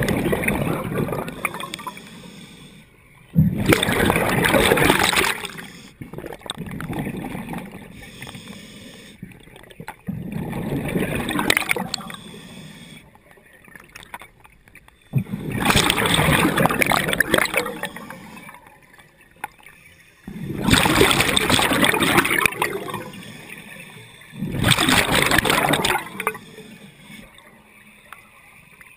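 Scuba regulator heard underwater: six loud bubbling bursts of exhaled air, each lasting a second or two, with quieter stretches between breaths.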